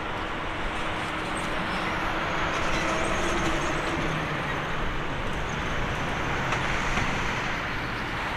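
Jet engine noise from a departing Airbus A380-841 with its four Rolls-Royce Trent 970 engines: a steady rushing noise with a faint low hum.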